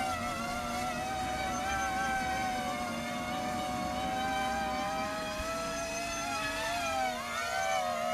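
Electric motors and propellers of a radio-controlled Starship SN8 model in flight, a steady whine of several close pitches. About six and a half seconds in, the pitch falls and climbs back.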